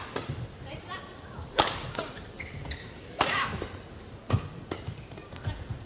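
Badminton rackets striking a shuttlecock in a doubles rally: about five sharp hits at uneven gaps, with short squeaks of shoes on the court.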